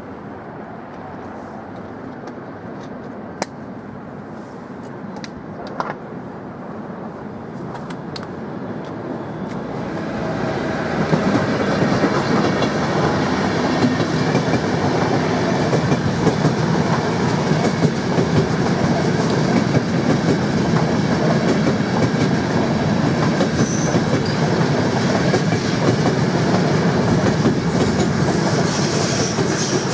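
Electric passenger trains passing on a multi-track main line. The rumble of a locomotive and its coaches builds from about eight seconds in and stays loud from about eleven seconds on. A couple of sharp clicks come before it.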